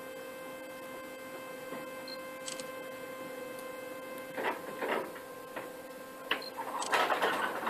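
Onyx-Elektra electric orchard working platform humming steadily while its trailer's scissor lift raises a deck of fruit bins. A couple of knocks come about four and a half seconds in, and louder rattling starts near the end.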